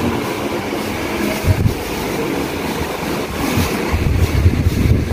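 Rushing wind-like noise on a phone's microphone, with low rumbling bumps as the handheld phone is moved about, about a second and a half in and again from about four seconds.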